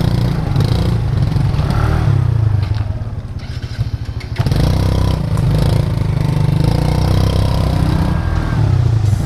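Motor scooter engine running at low speed while the scooter is eased around a gate barrier onto a dirt track; the engine note drops off about three seconds in and picks up again a second later.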